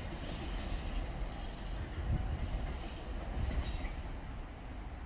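A train rumbling steadily, a low rumble that swells about two seconds in.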